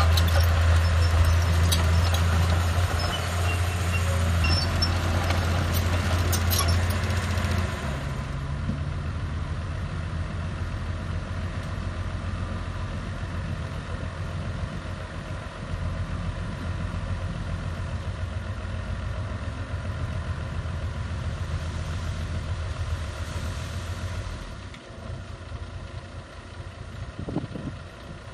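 Diesel engines running steadily: a Komatsu D31P crawler bulldozer idling close by while a dump truck behind it raises its tipper bed. The low engine hum drops about eight seconds in and again near the end.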